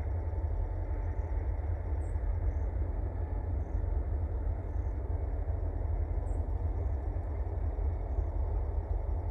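Distant rail yard din: a steady low rumble of diesel locomotives working in a freight hump yard, with no distinct clanks or squeals standing out.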